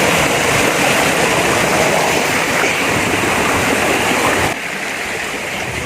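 Small waterfall rushing over rocks: a steady rush of water that drops suddenly to a softer level about four and a half seconds in.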